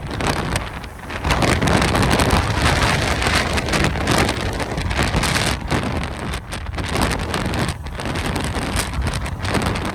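Strong, gusty Santa Ana wind buffeting the microphone: a loud rushing hiss over a heavy low rumble that swells and eases, dropping briefly about a second in.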